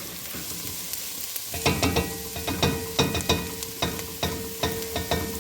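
Onion, garlic and celery sautéing in a pan, a low sizzle, then from about a second and a half in a utensil stirring them, knocking and scraping against the pan a dozen or so times.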